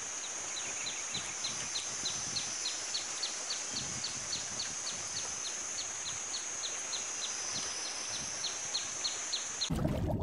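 Outdoor animal sounds: a steady high-pitched insect drone, with a short falling chirp repeated evenly about two to three times a second. Near the end it cuts suddenly to a louder, lower rushing sound.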